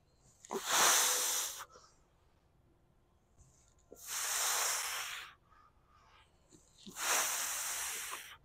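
A man's forceful, hissing breaths out, three of them about three seconds apart and each lasting over a second: effortful exhalations through the teeth on the reps of a set of dumbbell lateral raises.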